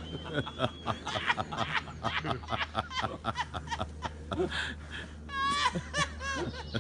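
A person snickering and laughing under their breath in short, quick bursts, rising into higher-pitched giggling about five seconds in.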